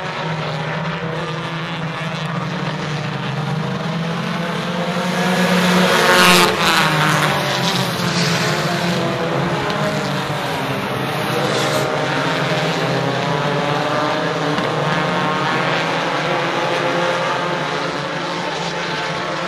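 A field of U-car class dirt-track race cars racing, their engines running together in a steady drone. The sound swells loudest about six seconds in as a car passes, its pitch rising and then falling.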